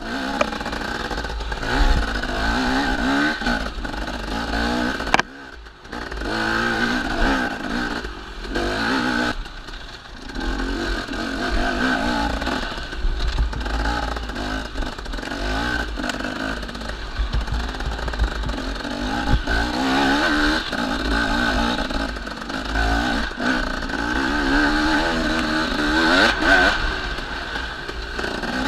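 Dirt bike engine revving up and down as the bike is ridden hard over rough trail, its pitch rising and falling constantly. The engine drops off briefly about five seconds in.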